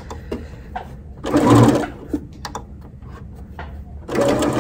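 Computerized sewing machine stitching fabric. It runs in a short burst about a second in, pauses, then starts stitching steadily near the end.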